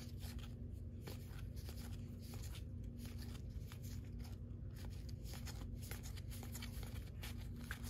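Baseball trading cards being leafed through by hand: faint, irregular soft flicks and slides of card stock against card. A steady low hum sits underneath.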